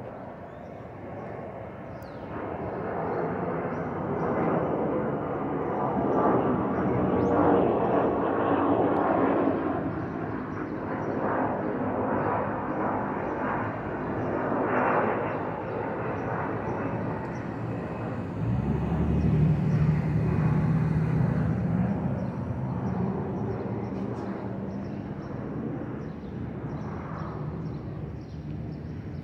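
Jet airliner passing overhead: a broad rushing engine noise that swells, eases, swells again, then slowly fades. A deeper steady hum comes in about two-thirds of the way through.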